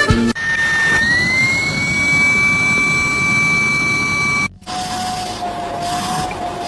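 A motor running with a steady high whine over a hiss, rising in pitch about a second in. It breaks off sharply, and a lower whine with hiss follows.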